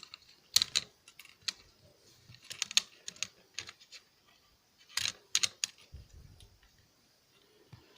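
Irregular light clicks and clatter of small plastic alarm-clock parts, such as gears and casing pieces, being handled and pulled apart by hand.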